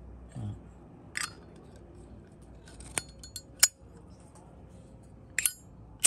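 Brass lid of a Zippo lighter being flipped open and snapped shut. A few sharp metallic clicks and clinks come about a second or two apart, the loudest a little past halfway.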